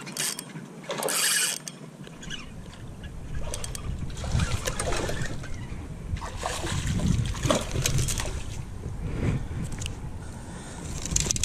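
Water splashing and sloshing at the water's edge while a hooked fish is landed by hand, with low rumbling handling noise. There are two short hissing bursts near the start.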